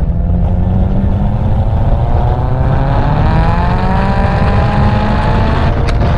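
A car's engine and exhaust accelerating hard, the note climbing steadily in pitch over several seconds over a heavy low rumble, with a brief break near the end.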